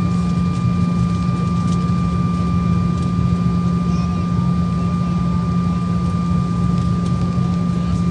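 Airliner engines heard from inside the passenger cabin while the plane taxis: a steady low drone with a constant thin high whine over it.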